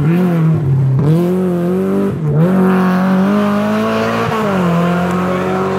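Rally car engine revving hard as the car pulls away out of a hairpin. Its pitch climbs and then drops sharply at upshifts about two seconds in and again a little after four seconds.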